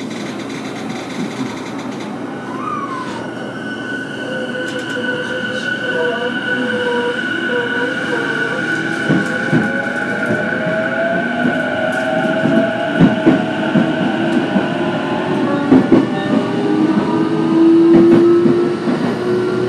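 Inside the car of a JR East E233-0 series electric multiple unit pulling away: the inverter and traction motors whine, with several tones rising in pitch as the train gains speed. From about nine seconds in, the wheels click over rail joints.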